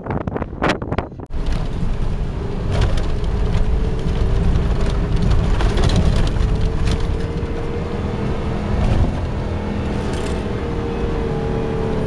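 Nissan Patrol driving on sand, heard from inside the cabin: a steady low engine and drivetrain rumble with a faint whine that climbs a little about halfway, then eases. It opens with about a second of wind gusting on the microphone.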